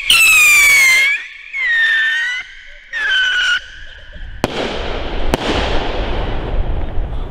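Funke three-stage 'Triller' rocket shrieking in flight: three shrill whistling stages, each dipping and then rising slightly in pitch, with short gaps between. Two sharp bangs about a second apart follow, then a fading crackling hiss.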